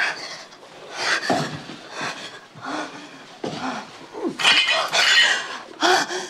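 A woman's breathy gasps and short wordless moans, with a burst of clinking glass and metal past the middle.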